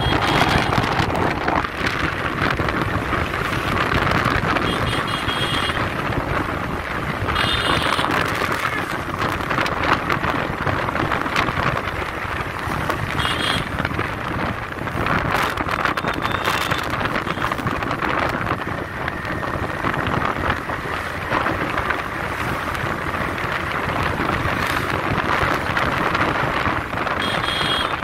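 Wind buffeting the microphone on a moving TVS Raider 125 motorcycle, its single-cylinder engine running underneath. The rushing noise stays loud and steady throughout.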